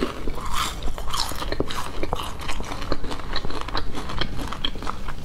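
Close-miked chewing of crispy multigrain-coated fried chicken: a dense run of small crunches and crackles as the breaded crust breaks between the teeth.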